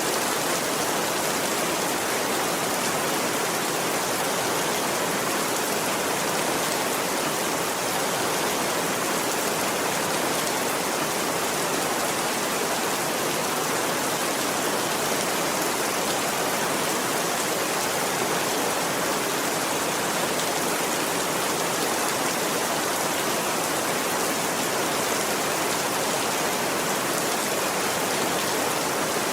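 Steady, even rainfall with no thunder.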